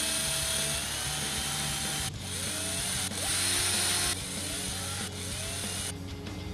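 Small handheld rotary tool (mini drill) drilling into a tiny model truck chassis, running in short bursts with a high whine. It stops about two seconds in, runs again louder from about three to four seconds, and briefly again after five seconds, its pitch rising each time it starts.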